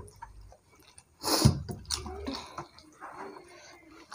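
Curry gravy poured from a small bowl onto rice and worked in by hand, giving wet dripping and squishing, with one louder splash-like burst a little over a second in.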